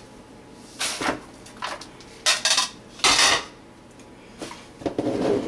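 Dishes clattering and scraping: plates knocked and scraped against a large mixing bowl as ingredients are tipped into it, in about half a dozen separate clatters, the loudest about three seconds in.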